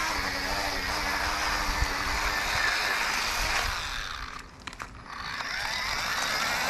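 Ryobi 18V cordless cultivator running, its electric motor driving the tines through grassy garden soil. About four seconds in the motor briefly lets off, with a few clicks, then picks back up.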